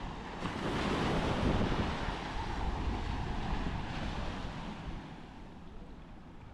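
Sea waves breaking on the beach, one surge swelling about a second in and washing away over the next few seconds, with wind buffeting the microphone.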